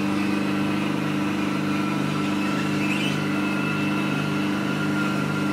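Velashape body-contouring machine running its vacuum suction continuously at maximum, with no release cycle: a steady mechanical hum made of several fixed tones that does not break or pulse.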